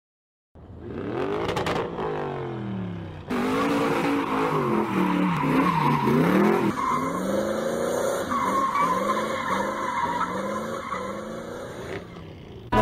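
A car engine revving up and down with tyre squeal, like a race-car or drifting sound effect at the head of a song, with a step up in loudness about three seconds in.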